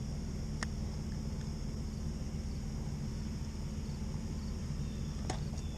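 Steady outdoor ambience by a pond: a constant high insect drone over a low steady rumble, with a couple of light clicks near the start and about five seconds in.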